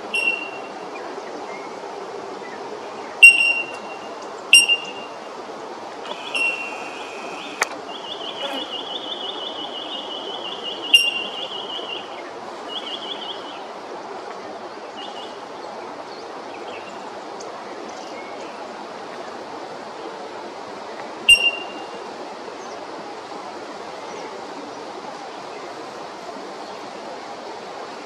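Red wattlebird calling: about six loud, sharp, harsh calls spaced irregularly, with a few seconds of rapid, higher twittering around the middle, over a steady hiss.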